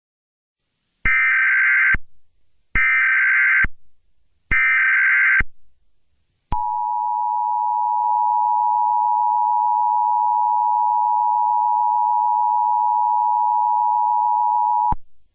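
Emergency Alert System header: three short bursts of SAME digital data tones in quick succession, then the two-tone EAS attention signal held steady for about eight seconds before cutting off sharply, the signal that an alert message is about to be read.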